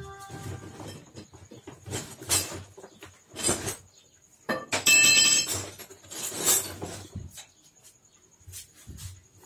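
Intermittent clinks and rattles of metal hand tools being handled, coming in short bursts about a second apart, with the loudest, ringing clink about five seconds in.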